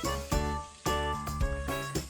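Light, bouncy background music: plucked or mallet-like notes changing several times a second over a steady bass.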